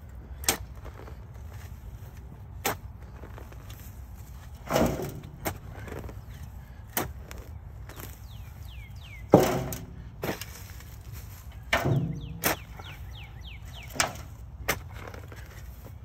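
Sharp knocks and thuds at irregular intervals, about one every second or two, three of them heavier with a short scraping tail, like a hand tool striking soil. Faint bird chirps come in over the second half.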